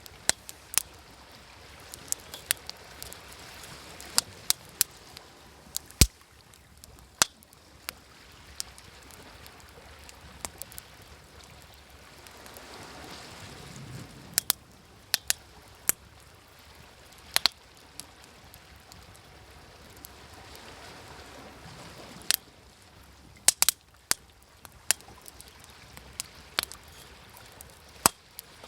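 Wood fire crackling, with sharp irregular pops, over waves washing on the shore that swell and fall back twice.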